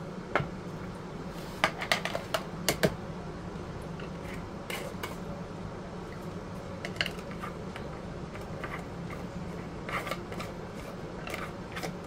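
Glass canning jars and lids being handled, in scattered light clinks and knocks with a quick run of several about two seconds in, over a steady low hum.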